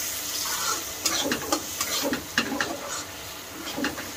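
Metal spatula scraping and stirring frying onions and spices in a kadhai, with irregular scrapes against the pan over a light sizzle.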